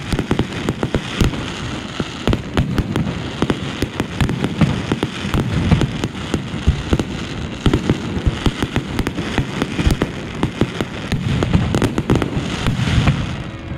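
Fireworks going off in quick succession, a dense crackling with many sharp bangs, as aerial bursts and low fountains of sparks fire.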